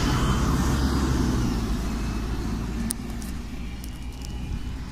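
Irisbus Cityclass CNG city bus's Cursor 8 natural-gas engine idling, a steady low rumble from the rear engine bay. A hiss fades out in the first second or two, and a few light clicks come about three seconds in.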